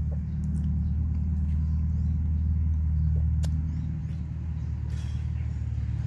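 A man chewing melon and eating from a spoon, with a few faint wet mouth clicks, over a steady low rumble.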